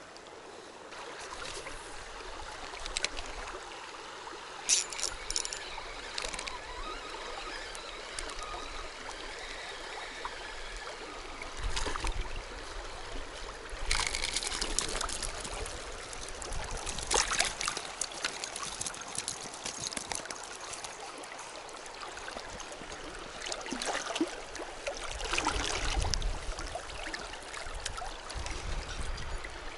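Shallow river running over stones, a steady rippling flow, with a few short clicks and splashes standing out from it now and then.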